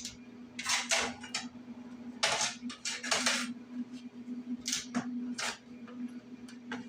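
Stick welder striking a series of short tack welds: about five separate crackling, hissing bursts of around half a second each, over a steady hum.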